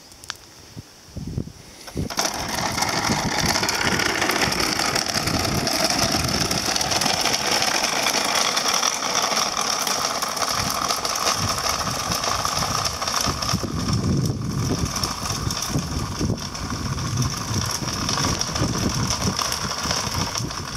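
Wheels rolling over a coarse, gritty road surface, a dense steady rattle that starts suddenly about two seconds in and keeps on without a break.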